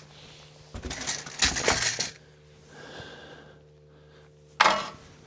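Metal parts of a trike's front wheel and fork clinking and clattering for about a second as the wheel is fitted back on, then a single sharp clank near the end.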